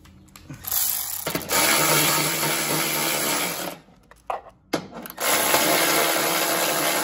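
Electric ratchet running in two spells, about three seconds and then about two seconds, with a short blip between, driving in the bolts that hold a plastic belt cover on.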